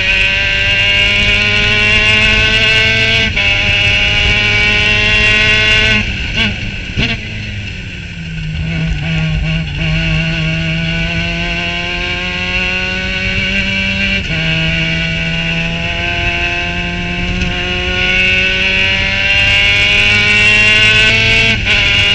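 Formula Mazda race car's rotary engine at full throttle, heard onboard, rising in pitch through the gears with upshifts about 3 and 14 seconds in and again just before the end. Between about 6 and 8 seconds the engine note falls away for a braking zone, with a couple of short downshift blips, then climbs again.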